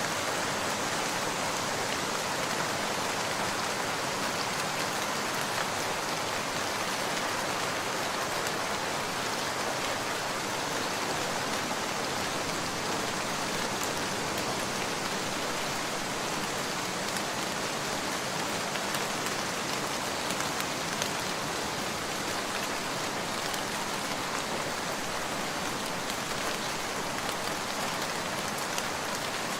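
Heavy rain falling steadily: an even, unbroken hiss of rain on surfaces with fine scattered drop ticks.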